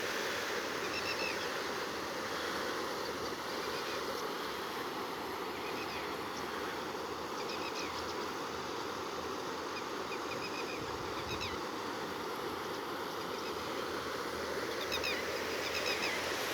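Steady rush of flowing river water, with small birds chirping now and then.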